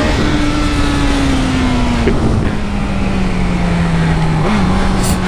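Honda CB1000R's inline-four engine with heavy wind rush on the microphone, its note falling steadily as the bike slows from high speed.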